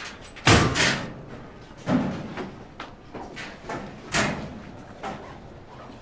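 Metal locker doors being opened and shut: a loud clank about half a second in, two more near two and four seconds, and lighter knocks between.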